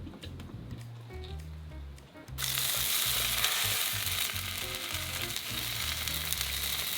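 Bread frying in a hot pan: a sizzle starts suddenly a couple of seconds in and carries on steadily. Before it there are a few light clicks.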